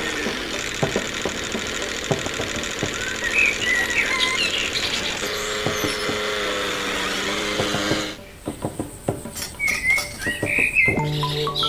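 Small electric motor of a miniature DIY toy tractor whirring as it drives, cutting off about eight seconds in. After that come a few light clicks of small metal parts being handled, and birds chirping.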